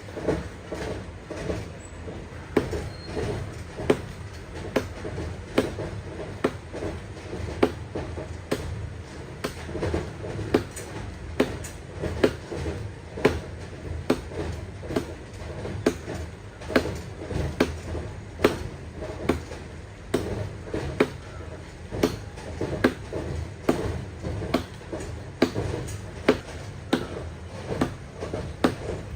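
Wood being chopped by hand, with sharp blows landing about once a second at an uneven pace over a low rumble.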